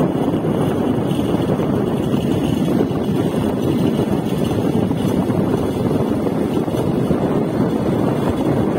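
Steady rush of wind buffeting the microphone on a moving motorcycle, with the bike's running and road noise blended in underneath.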